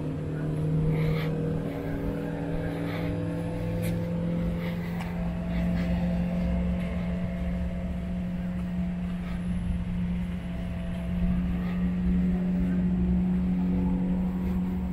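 A vehicle's motor running with one steady droning tone that rises slowly in pitch.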